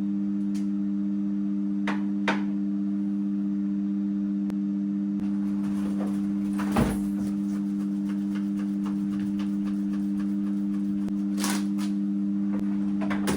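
Background music: a held two-note drone chord, with a few light clicks and one louder knock about seven seconds in.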